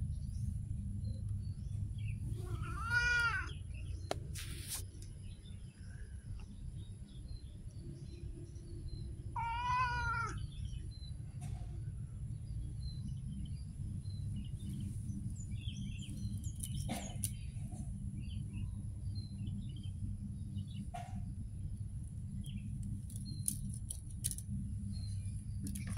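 Cat meowing twice, about seven seconds apart, each a single drawn-out call that rises and falls in pitch, over a steady low background rumble.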